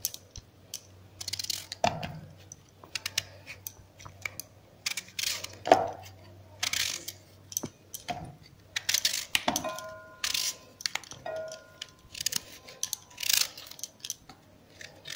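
Kitchen knife slicing a raw green mango, with irregular crisp cuts and clicks as the knife and falling slices tap against a steel bowl. A short ringing tone sounds about ten seconds in.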